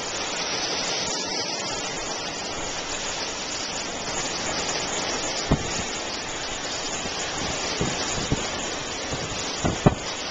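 Strong storm wind blowing over choppy lake water with waves breaking, a steady rushing noise. A few sharp thumps stand out, several of them close together near the end.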